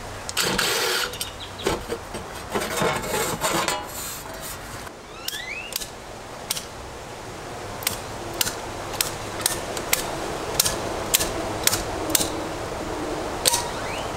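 A cordless drill runs in short bursts, backing out the screws of an old Zinsco electrical panel's cover. Then come a run of sharp clicks and snaps as the panel's plastic circuit breakers are handled.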